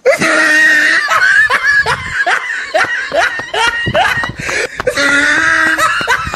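Several people laughing loudly, with quick repeated bursts of laughter one after another.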